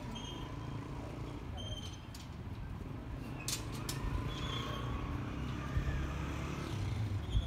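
Construction-site background: a steady low rumble, with a few sharp clicks and short high metallic clinks, the clicks bunched about halfway through.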